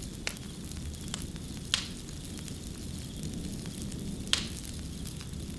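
Wood fire crackling: scattered sharp pops and snaps, two louder ones about two seconds apart near the middle, over a low steady rumble.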